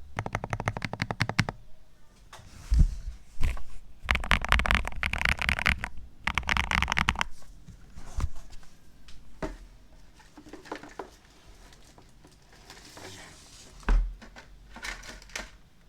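Redragon Wyvern K761 PRO mechanical keyboard being typed on: a rapid run of keystrokes at first, then dense bursts of typing, then scattered single keypresses and a low thump near the end.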